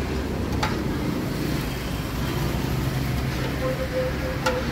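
Street ambience: a steady rumble of passing traffic, with two sharp clicks, about half a second in and near the end.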